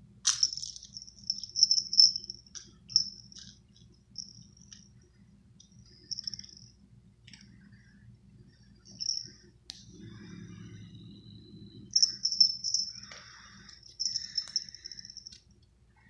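A small jingle bell on a cat's collar rattles in quick, irregular bursts as the cat bats and yanks at a toy mouse tied to the cat tree. The loudest jingles come right at the start, around two seconds in, and again near the end.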